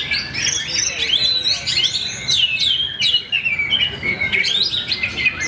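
Oriental magpie-robin (kacer) singing: a fast, unbroken run of varied whistled and chattering notes with quick up-and-down pitch glides.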